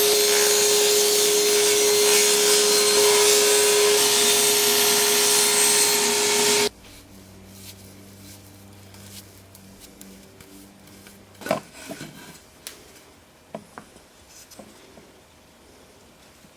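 A table saw with its blade tilted to 30 degrees, running and cutting oak, with a steady whine over the noise of the cut. It stops abruptly about 7 seconds in. After that come a faint hum and a few light knocks of wood being handled.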